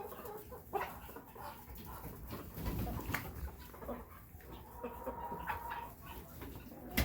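Poultry in a coop making scattered short clucks and calls, mixed with small knocks and rustling.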